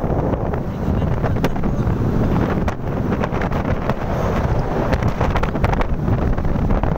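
Heavy wind buffeting on the microphone from riding in the open on a moving vehicle, mixed with the vehicle's running noise.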